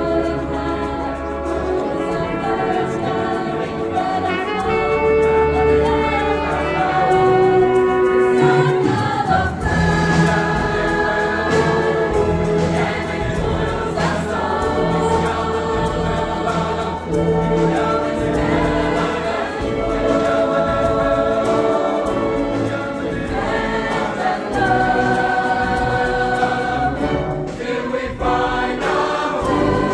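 Choir singing in long held chords with orchestral accompaniment; the bass fills out about ten seconds in.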